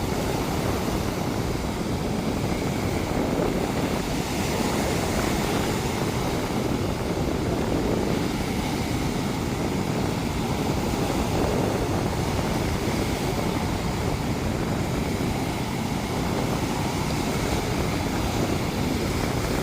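Ocean surf: a steady wash of waves with no single break standing out.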